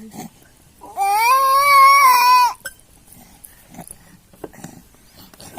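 A baby crying: one loud, long wail of about a second and a half, starting about a second in and cutting off, followed by faint small sounds.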